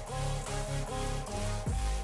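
Background electronic music with a steady beat, deep bass notes that drop in pitch, and a short repeating melody on top.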